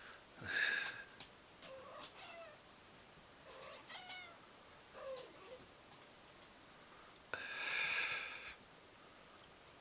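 A cat meowing several times in short calls that bend up and down in pitch, with two louder hiss-like noise bursts, one about half a second in and a longer one near the end.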